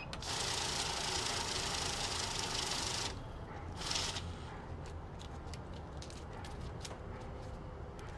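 Safescan banknote counter feeding a stack of bills through, a steady whirring rush for about three seconds, then a second short burst about four seconds in. After that, light scattered ticks.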